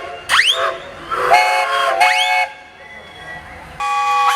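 Steam engine whistles at a massed whistle blow, several at once at different pitches, sounding in short overlapping blasts. Some whoop up in pitch as they open. A quieter lull comes about two-thirds of the way through, then a new chord of whistles starts near the end.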